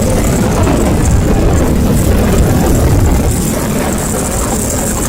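Heavy truck engine running loudly, a little louder through the first three seconds and then easing slightly.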